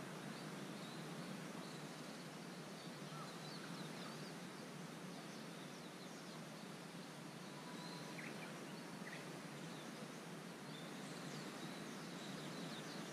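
Faint birds chirping in short scattered calls over a steady outdoor background hiss.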